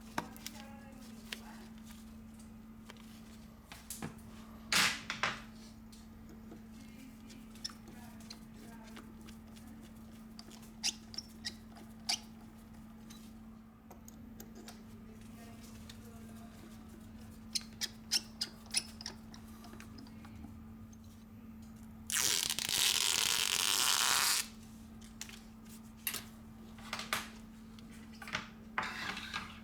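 Small, sharp clicks and taps of repair tools and parts as a smartphone is put back together on the bench, over a steady low hum. About three-quarters of the way in, a hiss lasts about two seconds.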